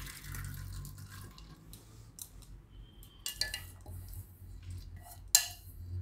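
Soaked, drained lentils (toor dal) poured from a stainless steel bowl into a pressure cooker: a wet rushing slide that fades out in the first second, then scattered light clicks and taps of lentils and the bowl against the cooker, with one sharper clink about five seconds in.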